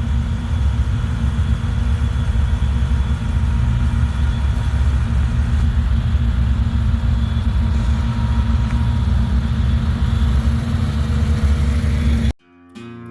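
Off-road 4x4 vehicle running on the trail, a steady low rumble that cuts off suddenly near the end, where acoustic guitar music begins.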